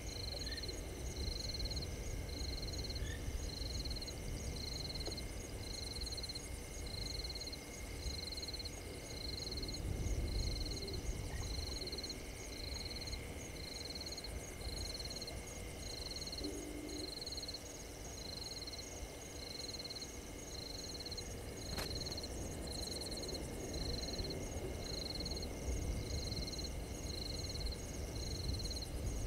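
A frog calling at night: a short, high-pitched note repeated evenly about once a second, with a fainter, faster ticking above it and a low steady rumble underneath. A single sharp click comes late on.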